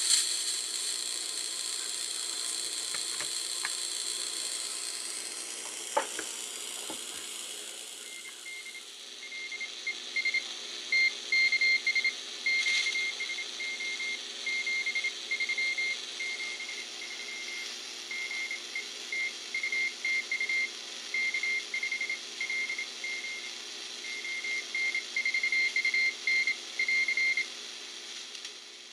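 Homebrew two-transistor ceramic-resonator regenerative receiver on the 40 m band playing through its speaker: static hiss with a few clicks. From about nine seconds in, a Morse code (CW) signal comes in as high-pitched beeps keyed on and off in dots and dashes over the hiss.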